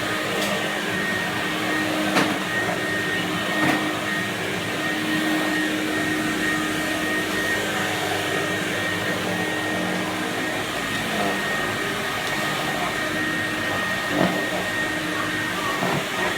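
An Electrolux 502S vacuum cleaner from 1982 running steadily, its motor giving an even rush of air with a steady whine, and a few brief knocks about two seconds in, again about a second and a half later, and near the end.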